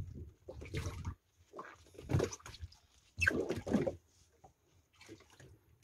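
Sea water slapping and splashing against the hull of a small open fibreglass boat, in irregular bursts with short quiet gaps between them.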